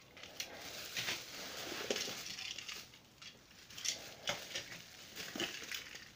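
Bubble wrap rustling and crinkling while plastic Trackmaster train cars click and knock as they are handled, lifted out of a cardboard box and set down.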